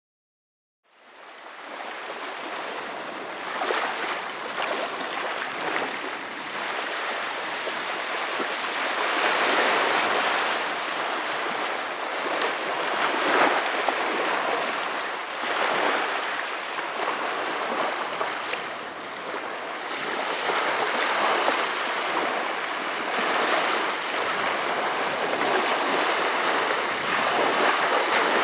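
Small waves breaking and washing up a sandy beach, a steady rush of surf that swells and eases every few seconds. It fades in about a second in.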